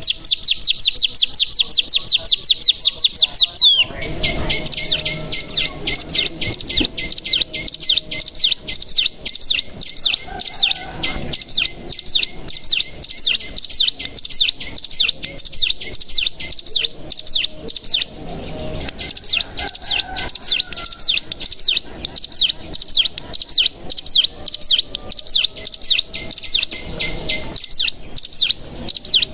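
Ciblek gunung, a mountain prinia, singing a fast, long run of repeated high chirps: the rapid 'bren' song. The run breaks briefly about four seconds in and again near eighteen seconds.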